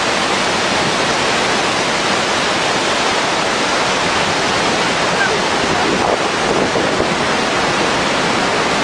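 Victoria Falls: a loud, steady rush of falling water and spray.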